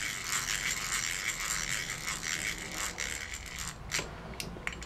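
Geared hand drill cranked steadily, its gears whirring and rattling as the bit drills a hole into the old output oil seal of a BMW Paralever final drive (bevel box). The cranking stops about three and a half seconds in, followed by a few light clicks.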